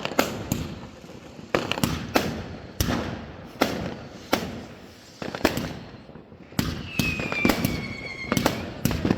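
Fireworks going off: a string of sharp bangs about once or twice a second, each trailing off. About seven seconds in, a high whistle runs for around a second and a half.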